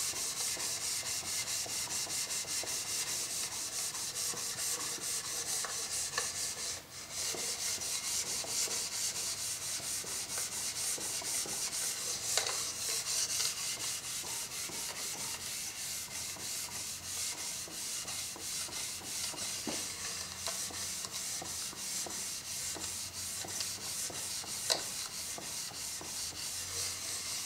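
Steel jointer knife held in a sharpening jig, rubbed rapidly back and forth on wet 40-micron 3M abrasive film: a steady run of short rubbing strokes with a high hiss, broken off briefly about seven seconds in. This is the polishing pass on the edge, meant to work out the deep scratches left by sandpaper.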